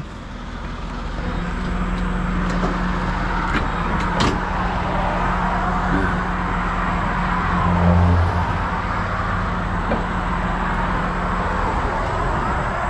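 Rotator tow truck running with its underlift hydraulics being worked: a steady hum comes in about a second in and drops away after about nine seconds, with a brief low surge near eight seconds. Passing interstate traffic adds a steady rush of tyre noise.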